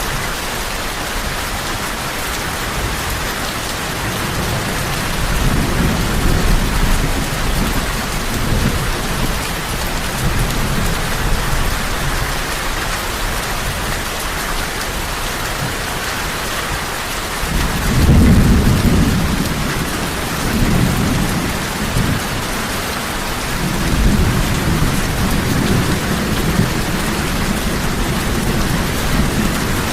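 Heavy rain falling in a steady, even hiss, with low rolling rumbles of thunder that swell a few times, loudest a little past the middle.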